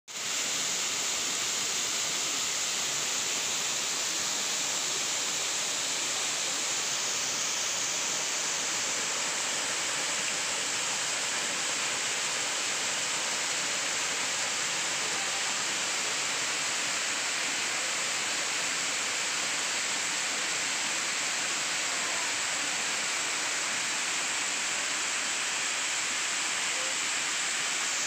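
Waterfall cascading down rock: a steady, even rush of falling water.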